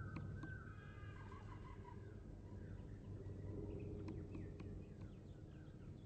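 Wild birds calling: a run of short, stepped falling notes in the first two seconds, then scattered chirps, over a low steady hum. A few light taps come through as a downy woodpecker pecks at a suet cake.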